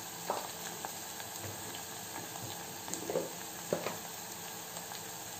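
Chopped small onions frying in hot oil in a stainless steel pot, a steady sizzle with scattered crackles and a few louder pops.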